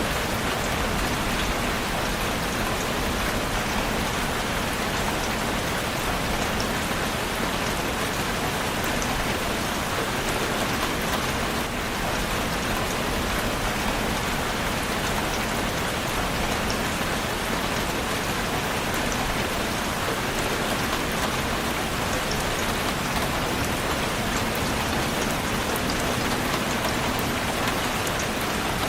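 Steady rain falling on a surface, a constant even hiss with fine patter of drops.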